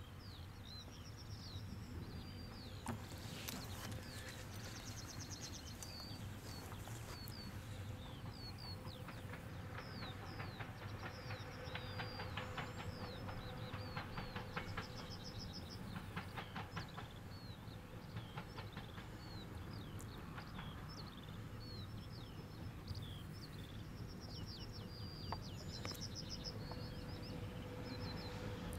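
Small birds chirping and trilling again and again over a faint, steady low rumble and hum from a distant passing electric train.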